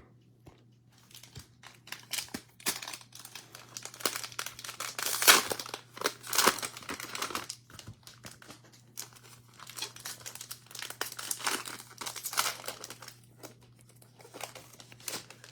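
Crinkling and tearing of a plastic cellophane wrapper as a pack of trading cards is opened and handled, in irregular crackles.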